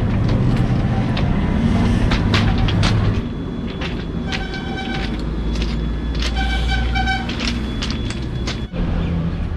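A train horn sounds twice, a short blast and then a slightly longer one about a second later, over a steady low rumble. Short knocks and crunches are heard in the first three seconds.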